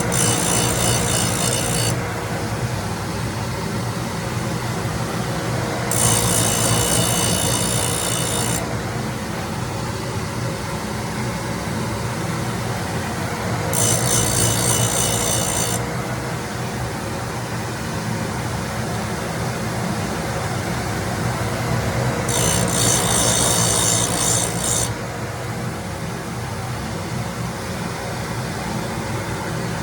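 Grinder running with a steady hum, its wheel grinding the edges of a stack cutter in four separate passes of about two to three seconds, each pass a high hiss of the wheel on the steel.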